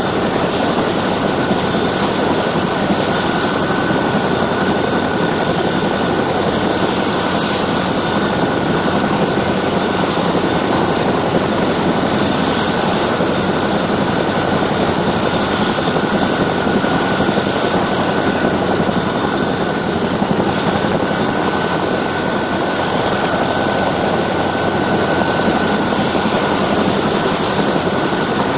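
Helicopter noise in flight, heard from a camera on top of a CH-47D Chinook: a loud, steady rush of rotor and air noise with a constant high whine over it, unchanging throughout.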